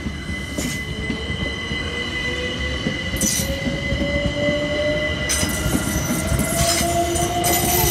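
Class 387/2 electric multiple unit passing at close range: a dense rumble of wheels on rails with a motor whine that rises steadily in pitch as the train gathers speed. Steady high-pitched tones sit over it throughout.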